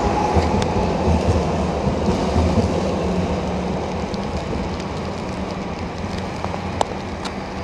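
Sheffield Supertram Siemens-Duewag articulated tram running past close by, a steady rumble with hiss from the wet track and road, slowly fading as it draws away. A couple of sharp clicks come near the end.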